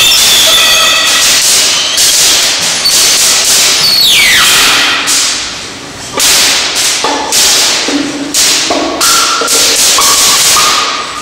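Solo violin played with harsh, scratchy bow strokes that sound more like noise than notes, with a few short pitched notes between them. About four seconds in, a high pitch slides down.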